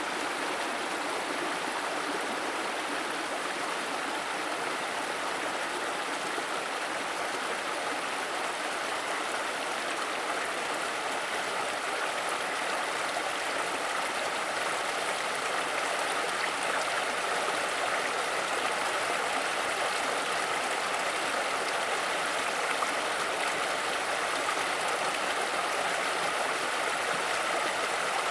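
Waterfall: water running in thin strands down a tall rock face, a steady even rush that gets slightly louder about halfway through.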